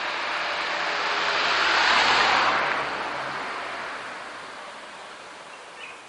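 A car passing on a wet road: its tyre hiss swells to a peak about two seconds in, then fades away as it moves off.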